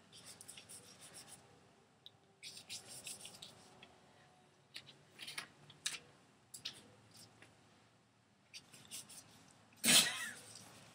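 Faint, scratchy rubbing and dabbing as paint is applied to a sheet of paper taped to a wall, with a few small clicks. Near the end comes a short, loud vocal sound.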